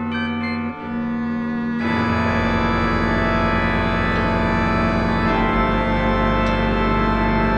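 Computer-rendered chamber music led by sustained organ chords; about two seconds in, a fuller, louder chord comes in with a deep bass note and holds.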